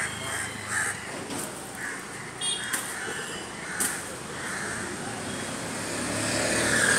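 Street traffic background with crows cawing, several short calls in the first four seconds, then two-wheeler engines coming closer and growing louder near the end.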